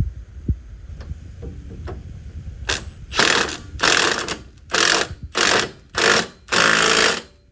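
Impact wrench hammering in six or seven short trigger bursts, starting a little under three seconds in, the last burst the longest, as it snugs up a 15 mm bolt.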